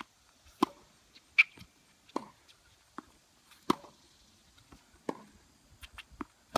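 Tennis balls being struck with racquets and bouncing on the court during a rally: a series of sharp pops, roughly one every second, the loudest about a second and a half in.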